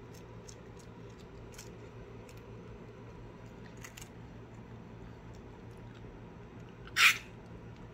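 A cat biting and chewing a dried capelin held in a hand, with faint crunching clicks. About seven seconds in comes one short, loud cough from eating too fast.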